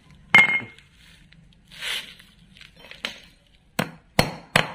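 A hammer striking a steel steering knuckle to tap a ball bearing into its bearing boss: one sharp ringing strike, then after a pause a quick run of metal taps, about two or three a second, near the end.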